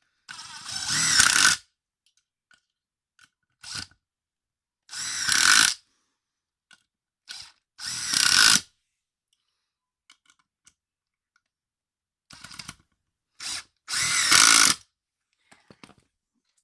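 Cordless impact driver driving screws into wood in four runs of about a second each, with short blips of the trigger between them.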